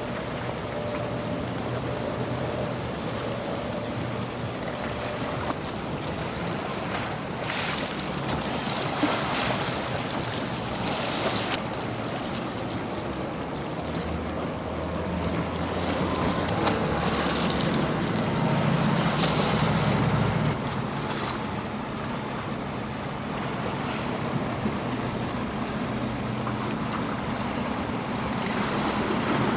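Boat engine running steadily as a boat passes through the inlet, growing loudest a little past halfway, over breaking surf and wind buffeting the microphone.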